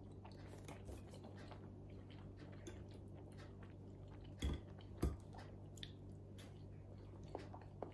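Quiet eating sounds: a knife and fork clicking and scraping on a plate, with two sharper clinks about four and a half and five seconds in, and faint chewing.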